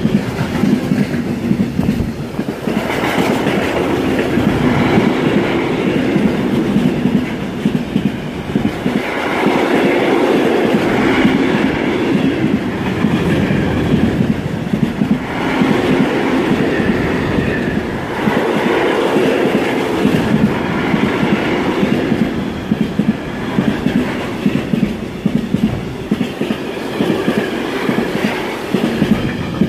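Freight train of tank wagons passing close by: steady rumble of steel wheels on the rails with clickety-clack over the rail joints, rising and falling every few seconds.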